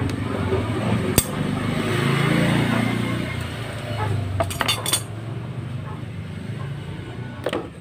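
Sharp metallic clicks and clinks, about a second in, a cluster around four to five seconds in and one near the end, over a low droning hum that swells and fades around the middle, while a broken wire is being spliced by hand.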